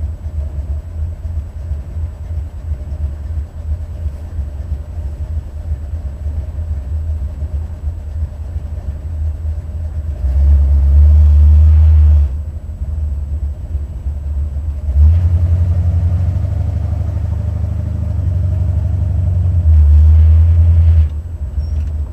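Buick 455 Stage-1 V8 running, heard from inside the car with a steady low rumble. It gets much louder three times, around 10, 15 and 20 seconds in, each time as it is given throttle, then drops back suddenly. The owner suspects a driver-side lifter that is not pumping up, or a pushrod problem, behind a valvetrain noise from this engine.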